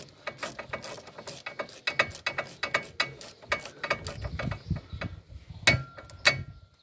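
Socket ratchet clicking in quick runs of sharp clicks as it turns a bolt on an ATV's rear brake caliper, refitting the caliper, with a couple of louder clicks near the end.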